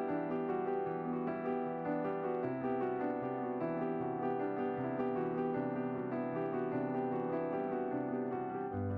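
Background piano music, a steady flow of notes over sustained chords.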